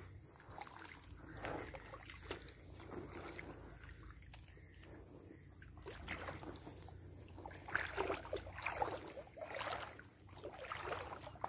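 Footsteps on wet river stones and in shallow water, with light sloshing; the irregular steps grow louder and come closer together after about six seconds.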